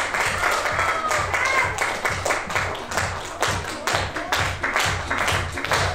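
Audience clapping in a steady rhythm, about four claps a second, over background music.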